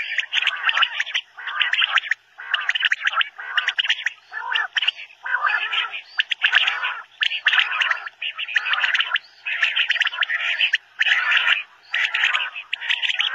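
Common quail (Coturnix coturnix) calling over and over in rough-sounding bursts, about one a second, each lasting roughly half a second.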